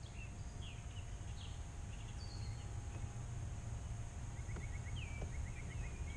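Outdoor lakeside ambience: a steady low wind rumble with faint, scattered bird chirps, and a quick trilled run of short bird notes in the second half.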